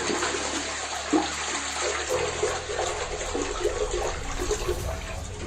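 Toilet flushing, with a steady rush of running water.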